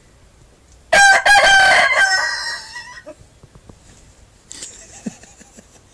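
A rooster crowing once: a loud crow starting about a second in, faltering twice at its start, then held and trailing off over about two seconds. The bird has a hoarse, off-key voice.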